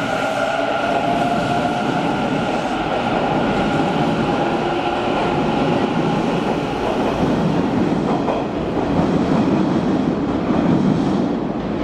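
Hanshin 1000 series electric train running out of an underground station. A steady motor whine in the first second gives way to the rumble of wheels on rail as the cars pass.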